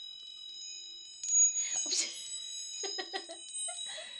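Dolphin wind chime tinkling, several high tones ringing on, with a louder clash of chimes about a second and a half in as the cat bats at it.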